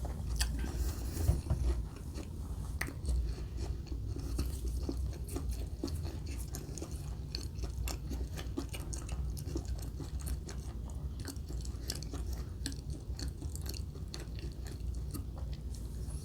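Close-miked chewing and biting of fast food, with many small crisp clicks and crunches throughout over a steady low rumble.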